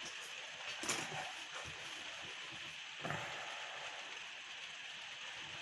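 Faint steady hiss with two soft knocks, about one and three seconds in, from a steel square being positioned against the workpiece.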